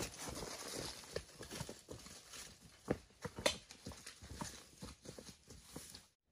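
Footsteps in rubber boots on a dirt forest trail, with leaves and ferns brushing, as irregular soft knocks that grow fainter as the walkers move away. The sound cuts off abruptly near the end.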